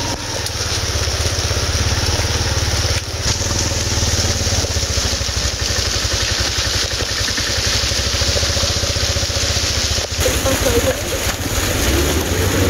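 A motor vehicle's engine running steadily under wind and travel noise, with abrupt changes in the sound about three seconds and ten seconds in.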